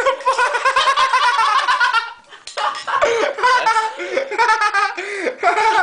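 A person laughing hard in long fits of quick, high-pitched pulses, breaking off briefly about two seconds in, then laughing again.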